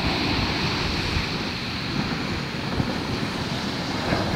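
Surf breaking and washing on a sandy beach, a steady rushing noise, with wind buffeting the microphone in gusts.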